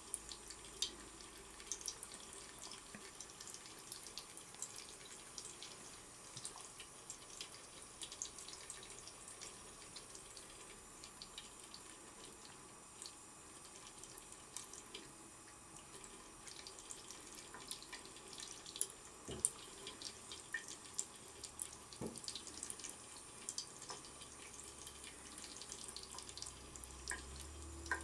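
Tap water running steadily into a sink, with many irregular short splashes and drips over it.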